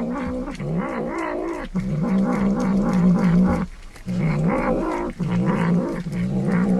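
A cat yowling in long, wavering, drawn-out calls, about four in a row with short breaks between them.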